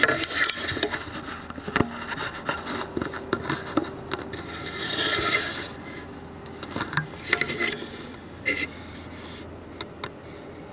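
Close handling noise: rustling, scraping and clicking against the microphone, with a longer rustle about five seconds in, as the camera is moved and the fish finder in its fabric case is handled.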